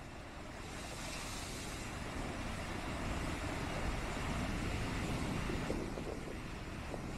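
Car driving, a steady rush of road and wind noise that swells louder from about a second in and eases off near the end.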